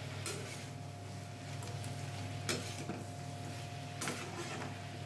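A spatula stirring chopped vegetables in a pan, with a few sharp knocks of the spatula against the pan, over a steady low hum.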